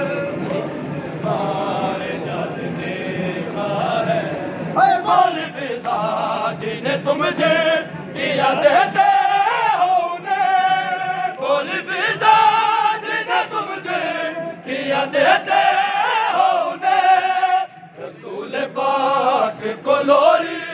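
Men chanting a nauha, a Shia mourning lament, during matam. Several voices chant together at first, then from about nine seconds in a single strong lead voice carries the chant, with short breaks between lines.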